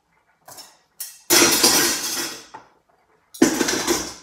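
Dishes and pots clattering and knocking together while being washed at a kitchen sink, in several loud spells. The longest lasts about a second.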